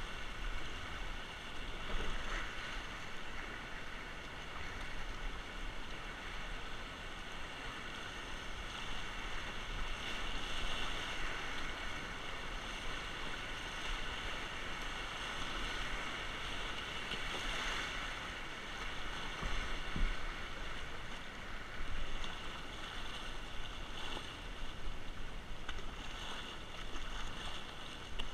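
Whitewater rapids rushing and splashing against a kayak as it runs through them. The noise of the water is steady, with a few louder splashes, at about two seconds in and twice near the twenty-second mark.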